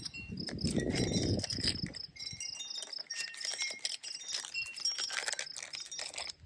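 Wind buffeting the microphone for about two seconds, then scattered short, high ringing notes at several different pitches over a thin, steady high tone.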